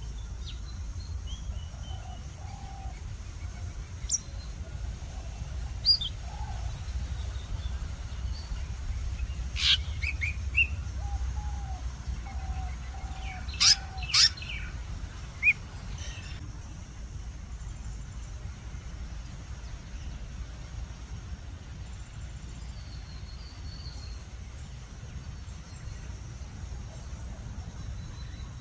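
Wild birds chirping and calling, with several sharp, loud calls clustered in the first half and only a few faint chirps later, over a steady low rumble.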